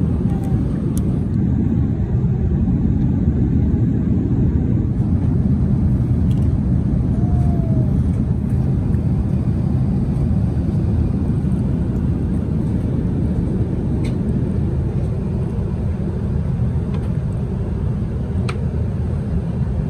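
Steady low rumble of an Airbus A380's economy cabin in flight: airflow and engine noise, unchanging in level.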